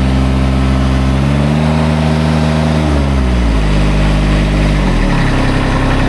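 Kubota ZD221 zero-turn mower's three-cylinder diesel engine running, now that reseating its fuses has cured its no-crank fault. Its speed is raised about a second in, then brought back down in two steps, around the middle and about five seconds in.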